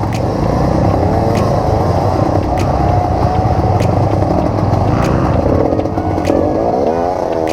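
Off-road trail motorcycle engine revving hard, its pitch rising and falling again and again.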